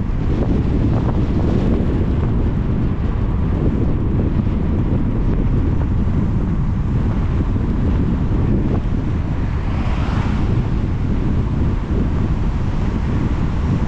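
A car driving on a wet road in the rain: a steady low rumble of tyres, wind and engine, with a brief hiss that swells and fades about ten seconds in.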